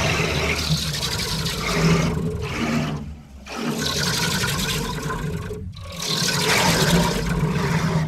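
Designed monster roar for the Tarakava, built from walrus and crocodile sounds with vocoder and lowered pitch: a long, rough roar in three swells, dipping briefly a little after three seconds and again near six seconds.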